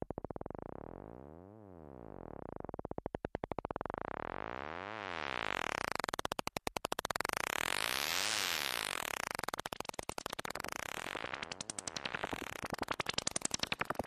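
Moog Werkstatt-01 analog synthesizer sounding a buzzy, pulsing tone that swells and sweeps up and down about every second and a half. It grows brighter and fuller midway through, then breaks into a faster, choppier pulse near the end.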